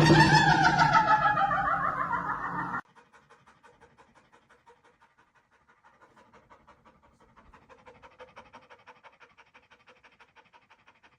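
A loud, pitched, crying-like sound whose pitch slides downward, cutting off abruptly about three seconds in. Faint, rapid, rhythmic panting follows.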